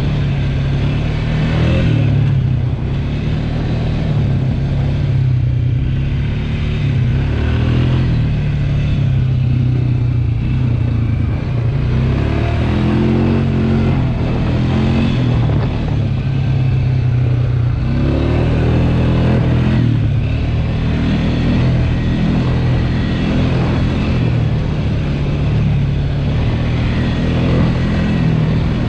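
ATV engine running under way, its note rising and falling with the throttle several times.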